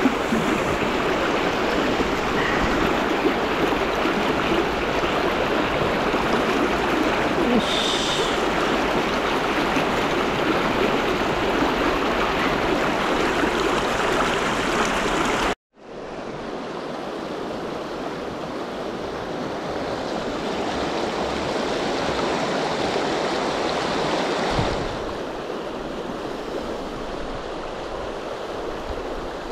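Fast river rapids rushing: a steady, even hiss of moving water. About halfway through the sound cuts out for a moment and resumes quieter.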